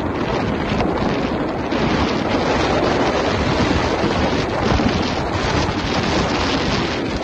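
Strong wind buffeting the microphone over the rush of water past the hull of a large sailing yacht driving hard under sail at about 21 knots. Loud and steady throughout.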